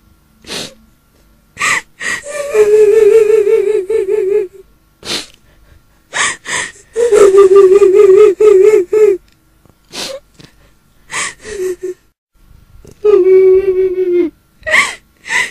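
Eerie crying of a woman's voice, a kuntilanak ghost cry: three long quavering wails on one held note, the last sliding down at its end, broken by sharp sobbing gasps in between.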